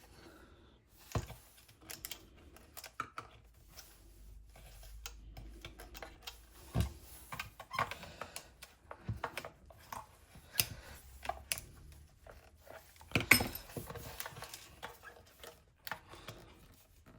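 Scattered plastic clicks, taps and knocks as the Pure Siesta Rise DAB radio's plastic casing and internal clips are handled and prised apart. One knock about thirteen seconds in is the loudest.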